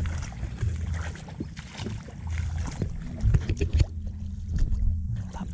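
Footsteps wading through the shallow water of a flooded rice paddy, with irregular splashing and sloshing. Low wind rumble on the microphone runs underneath.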